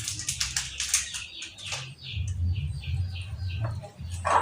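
A chicken's wings flapping in short bursts, followed by a quick regular run of short high chirps, about three or four a second, and a louder squawk near the end.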